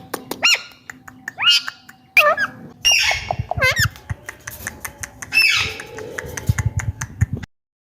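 Indian ringneck parakeet giving a run of short squawks and chirps that swoop up and down in pitch, with sharp clicks between them. The sound cuts off suddenly near the end.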